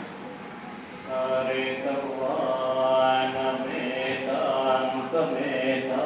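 Buddhist monks chanting together in unison, men's voices on long held tones. The chant comes in about a second in, after a short lull.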